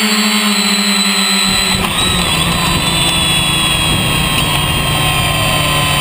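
3DR Iris+ quadcopter's four brushless motors and propellers whining in several steady tones. The pitch shifts about a second and a half in as the drone comes down onto the grass, then holds as the motors keep spinning after landing.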